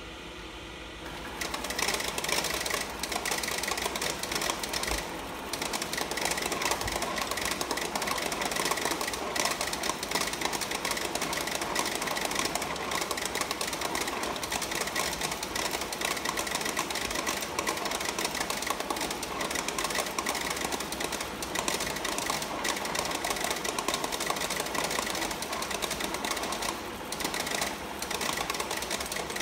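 KOA-550 multi-pocket banknote sorter feeding a stack of notes through and sorting them into its pockets. It starts about a second and a half in and then runs steadily with a fast, even mechanical rattle.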